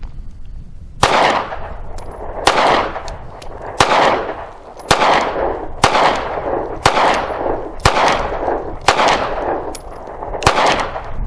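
A SCCY 9mm semi-automatic pistol fired nine times in slow succession, about one shot a second, with Federal Syntech 130-grain polymer-coated rounds; each shot is a sharp crack followed by a long echo.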